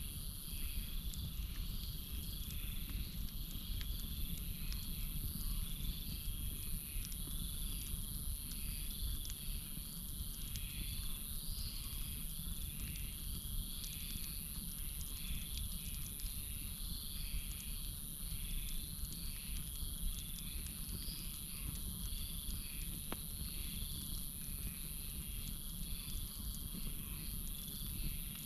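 Campfire burning with a steady low rumble and a few scattered faint crackles, under a night chorus of crickets and frogs: a constant high trill and a pulsing call repeating a little more than once a second.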